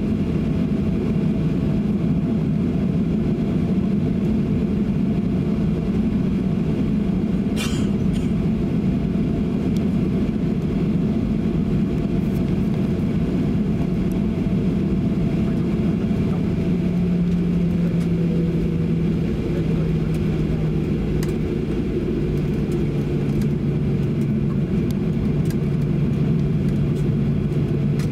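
Steady low cabin rumble of a Boeing 737-800 taxiing, its CFM56-7B jet engines at taxi power. About two thirds of the way through, a low steady hum comes in and steps down in pitch twice. A single short click sounds about a quarter of the way in.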